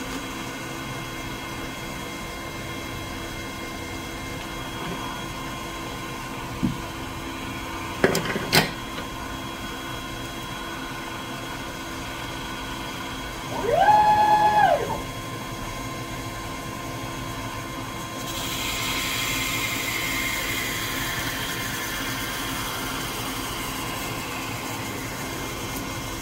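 Dyna Myte DM3000 CNC lathe running with its spindle turning: a steady machine hum, a few sharp knocks about 7 and 8 seconds in, and a motor whine about 14 seconds in that rises, holds and falls, like an axis drive making a rapid move. From about 18 seconds a steady hiss starts and slowly falls in pitch.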